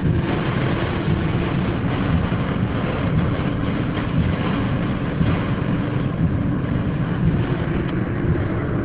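Loud, steady rush of storm wind and driving rain on a car, heard from inside the cabin.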